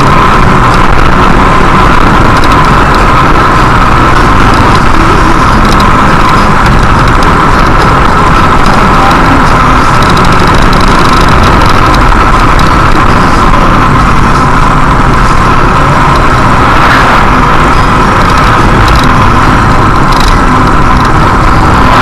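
Road and engine noise inside a moving car, picked up by a dashcam microphone: loud and steady, with a constant hum in it.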